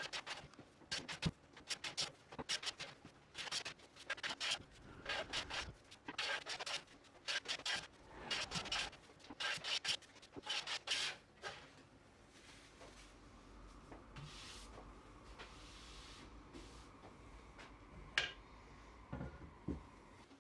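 Hand tool scraping across wood in a quick run of short, irregular strokes, about one to two a second. The strokes stop about 12 seconds in, and a single sharp knock follows later.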